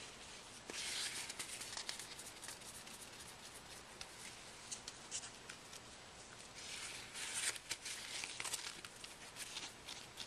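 Faint rubbing of a cloth wiping a Galaxy S3's exposed LCD clean, in two spells about a second in and about seven seconds in, with small scattered handling clicks throughout.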